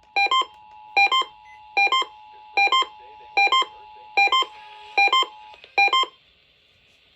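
Electronic alert beeper sounding in short double beeps, about one every 0.8 seconds, eight in all, during an Emergency Alert System test. Underneath runs the steady two-tone EAS attention signal, which stops about five and a half seconds in.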